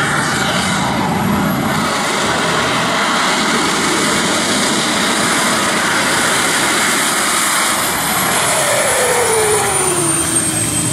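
Jet engine of a jet-powered golf cart running at speed: a loud, steady jet roar with a high turbine whine. About eight seconds in, the whine glides steadily down in pitch as the cart passes by.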